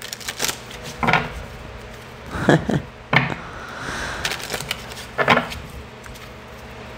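A tarot deck being shuffled by hand: about half a dozen sharp, irregular clacks of cards knocking together, with soft sliding rustles between them.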